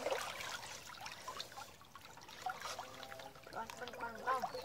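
Shallow creek water sloshing and trickling around people wading in it, with small splashes.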